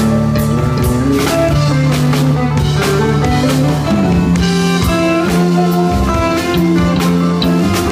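Live band playing an instrumental passage: electric guitar over drums, with held and shifting notes and steady cymbal hits.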